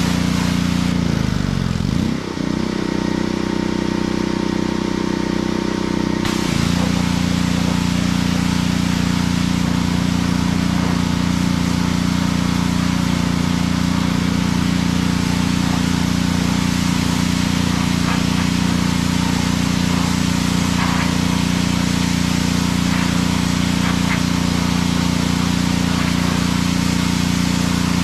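Pressure washer running steadily, with the hiss of water spraying from the wand. The spray stops about a second in, the machine's note dips and shifts as the load comes off, and the spray resumes about six seconds in.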